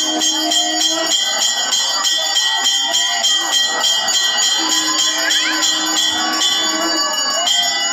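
Temple bells ringing rapidly and without pause for the aarti, in quick even strokes with a shimmer of high overtones. A low held note sounds twice over the bells, near the start and again about midway.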